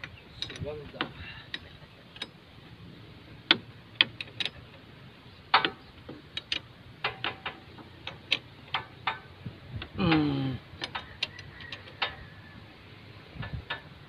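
Irregular metal clicks and taps of hand tools working on the travel pedal linkage of a Komatsu PC60 mini excavator.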